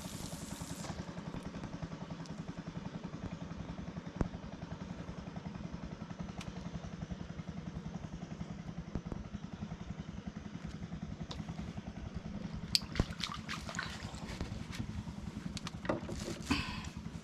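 Small boat engine running steadily with a fast, even putter. A few sharp knocks and clatters sound about 13 seconds in and again near the end.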